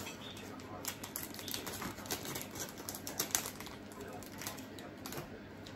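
Small scissors snipping open a plastic food package, the plastic crinkling and rustling in a run of irregular sharp clicks.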